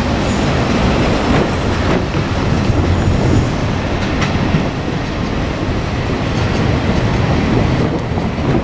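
Two-car KiHa 47 diesel railcar train running past on the track: a loud, steady rumble of wheels on rail with a few faint clacks.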